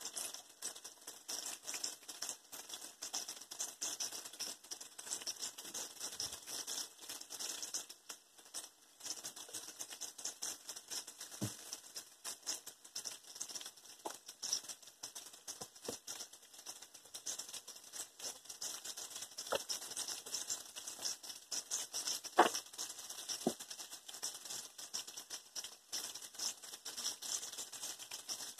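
Battered bacon strips deep-frying in a skillet of hot vegetable oil: a steady, dense crackling sizzle with a few sharper pops in the later part, the loudest about three-quarters of the way in.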